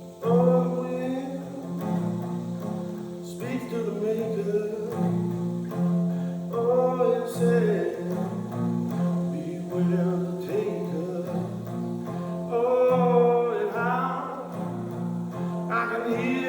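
Slow acoustic jam with added reverb: a voice sings long drawn-out phrases over held low notes and guitar.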